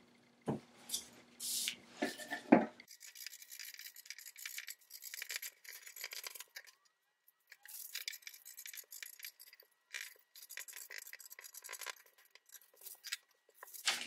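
Scissors cutting through pattern paper: a long run of fine snipping and paper rasp that pauses briefly about halfway. In the first few seconds there are a few knocks as the paper is handled.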